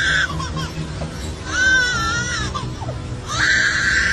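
Lyrebird calling: three drawn-out, buzzy calls, the middle one wavering in pitch and the other two held steady, over background music.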